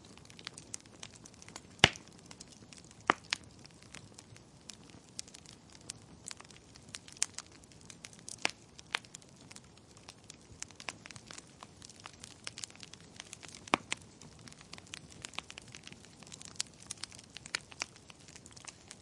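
Wood fire crackling in a fireplace: irregular sharp pops and snaps of burning logs over a soft hiss, with a few louder pops about two, three and fourteen seconds in.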